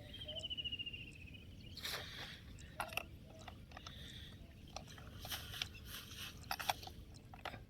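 Faint scattered clicks, knocks and scrapes of plastic toy vehicles and a toy crane hook being handled, with a short high pulsing trill that falls slightly within the first second.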